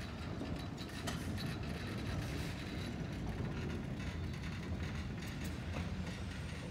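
A pair of class 181 electric locomotives rolling slowly past: a steady low rumble with scattered clicks of the wheels on the rails.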